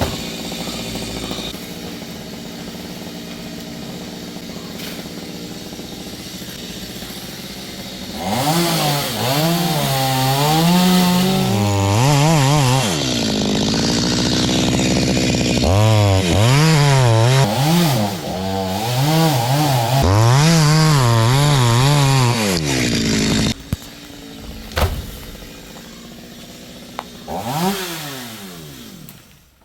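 Stihl chainsaw idling, then run at full throttle for about fifteen seconds with its pitch rising and falling as it cuts wood. It drops back to idle, revs once more briefly, and shuts off near the end.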